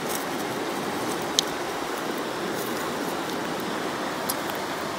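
Steady rush of running water, with a single sharp click about a second and a half in.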